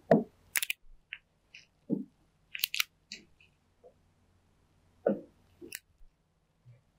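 Scattered short clicks and taps with a few soft rustles between them, irregular and a second or so apart: a stylus tapping an interactive whiteboard screen as the pen tool is picked from its menu and drawing begins.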